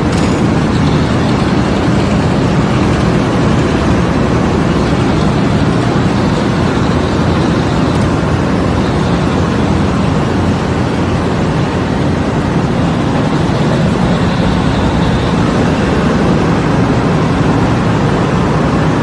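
Filter-felt production machinery running: a loud, steady mechanical din with no pauses.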